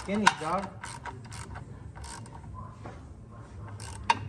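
Hand ratchet clicking in short strokes as a transmission bolt is run in, with a sharper, louder click about four seconds in.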